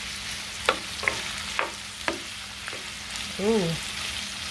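Smoked sausage, onion, celery and minced garlic sizzling in a nonstick frying pan while a spoon stirs them, knocking against the pan about every half second. A short tone falling in pitch about three and a half seconds in.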